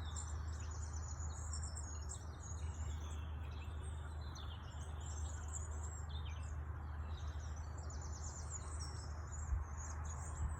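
Several songbirds chirping and trilling together in a busy morning chorus, over a steady low rumble. A brief low thump comes near the end.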